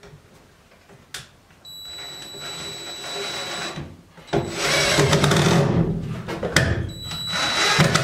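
Cordless drill driving screws at the frame of a window air conditioner: three runs of the motor with a high whine, the second and third louder, with a sharp click about a second in.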